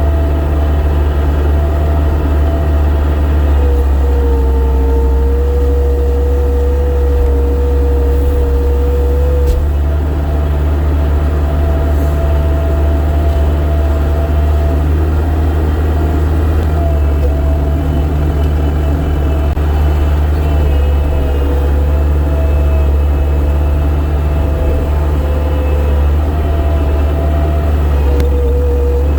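Vehicle engine running steadily under way, a heavy low rumble with a thin whine on top that drops in pitch a few seconds in and comes back up at about ten seconds.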